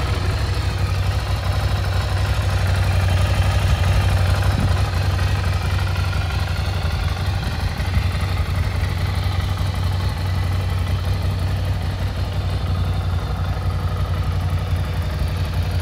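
Ducati Scrambler Icon's air-cooled 803 cc L-twin engine idling steadily, a low, even running note.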